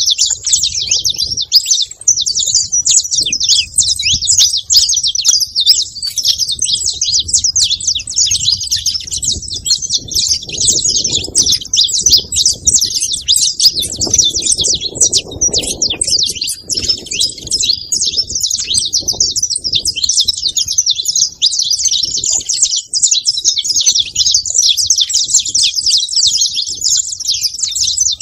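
A flock of saffron finches chirping, many high calls overlapping in a dense, unbroken chatter.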